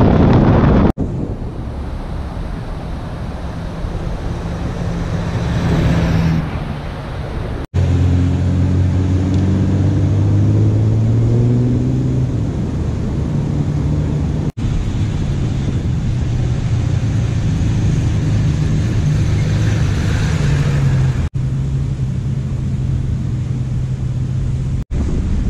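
Four-wheel-drive's diesel engine running steadily as it drives on sand, with wind noise on the microphone. The sound drops out briefly about five times.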